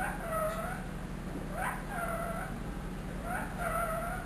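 Indian ringneck parakeet repeating the same short mimicked call three times, about one and a half seconds apart. Each call is a quick rising note followed by a held, slightly falling note.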